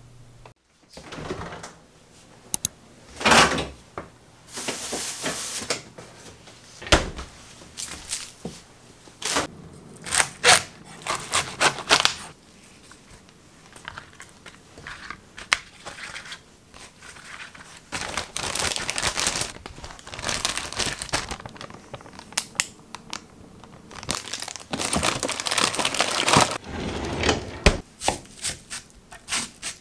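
Kitchen preparation sounds: packaging crinkling and tearing, with scattered clicks and knocks of things being handled and set down. Near the end comes a quick, even run of knife taps on a cutting board.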